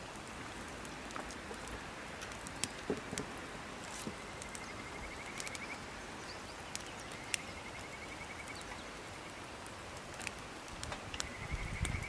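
Wood fire burning with a steady hiss and scattered sharp crackles and pops. A faint high pulsed trill comes three times, and a brief low rumble sounds near the end.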